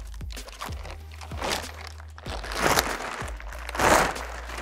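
A large clear plastic cover crinkling and rustling as it is handled and pulled up off a robot arm, with louder crackling bursts about two and a half seconds and four seconds in.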